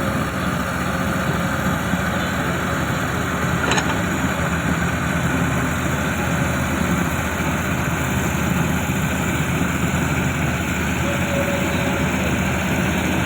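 Large bulldozer's diesel engine running steadily at an even pitch, with one short click about four seconds in.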